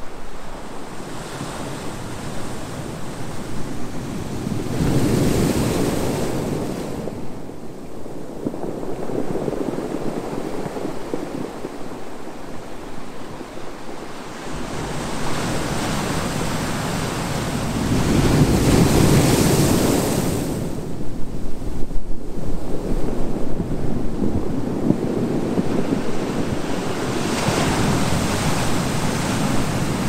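Small sea waves breaking on a sandy beach and washing up the shore, a steady hiss that swells louder about five seconds in and again around eighteen to twenty seconds in.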